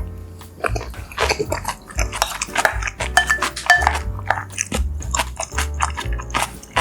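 Background music with a steady low bass, over close-up eating sounds: a spoon or chopsticks clicking against a bowl, and chewing, in many short sharp clicks.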